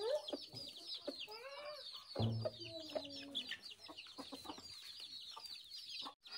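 Chickens calling: a dense, continuous chatter of short, high, falling cheeps, with clucks and a louder lower call about two seconds in.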